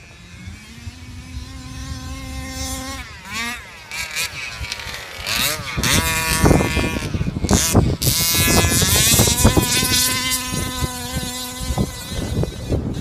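Modified 32cc Revolver two-stroke engine in a 1/5-scale Baja RC car, holding a steady pitch at first, then revving up and down repeatedly, loudest in the middle, and settling to a steady pitch again near the end.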